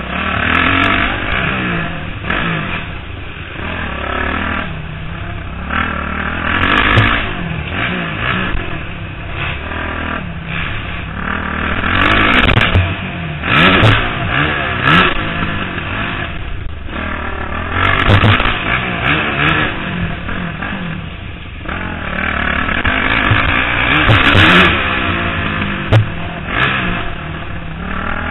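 Motocross bike engine revving hard and falling off again and again through throttle and gear changes, heard close up from a helmet-mounted camera. Clatter and knocks from riding over the dirt track run through it, with a sharp knock near the end.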